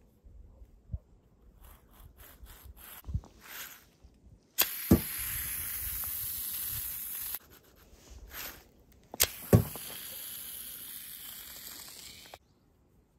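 Arrow slingshot with latex tubing shooting twice: each shot is a sharp snap followed about a third of a second later by a dull thud, once about four and a half seconds in and again about nine seconds in. Each shot is followed by a few seconds of steady hiss. Light clicking and rubbing from handling the wooden handle and spring clip rest comes before.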